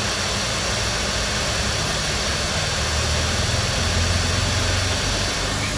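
Hot air rework gun blowing steadily onto a motherboard component to melt its solder, a constant airy rush with a low hum underneath.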